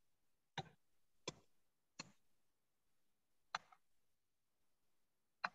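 Near silence broken by five faint, short clicks at uneven intervals, like a computer mouse being clicked while paging through a document.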